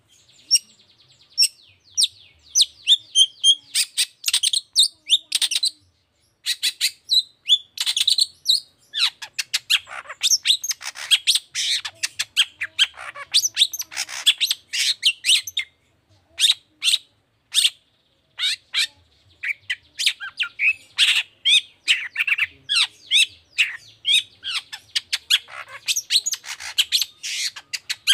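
Long-tailed shrike (cendet) singing a fast, chattering song of rapid sharp high notes, broken by a few short pauses.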